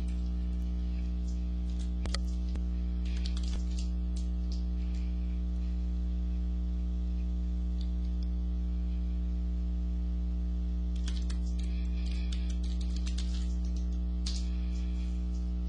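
Short bursts of typing on a computer keyboard, once a few seconds in and again in a longer run near the end, over a steady low electrical hum.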